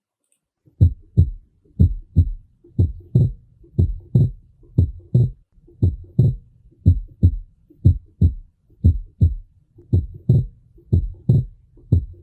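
Recorded human heart sounds on auscultation, starting just under a second in, about one beat a second. The rhythm is heard as 'tum-ta' turning into 'tum-tlá' on inspiration: the second heart sound (S2) is splitting into its aortic and pulmonary components, a physiological split of S2.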